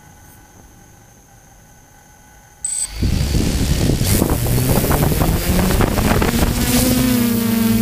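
A short high beep, then about three seconds in a DJI F450 quadcopter's four motors and propellers spin up: a loud rush of propeller wash over the microphone, with the steady hum of the rotors coming through near the end.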